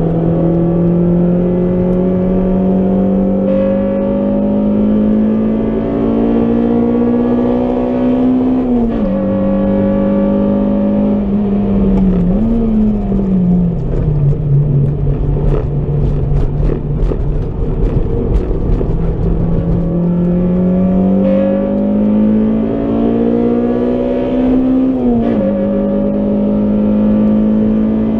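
Honda Civic Type R EP3's 2.0-litre four-cylinder engine heard from inside the cabin under hard acceleration, its pitch climbing steadily and dropping sharply at an upshift about a third of the way in and again near the end. In the middle it eases to a lower, steadier note for a corner, with a rapid run of short sharp knocks.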